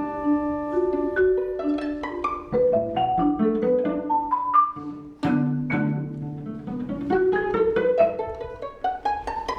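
Contemporary chamber music from a small ensemble: a busy run of short, quickly changing notes over held tones, with a brief dip and then a sudden accent about five seconds in.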